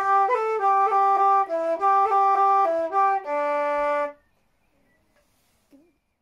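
Wooden Irish flute playing a phrase of a dance reel: one melody line of quick notes, ending on a long held low note that stops about four seconds in.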